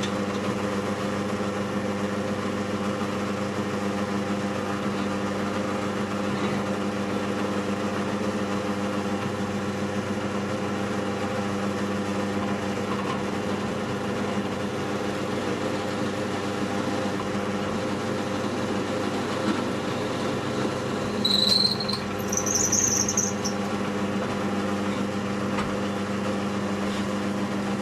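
A drill press motor runs steadily while a pin hole is drilled through the knife's handle scale. About three quarters of the way through, the bit gives two short high-pitched squeals as it cuts.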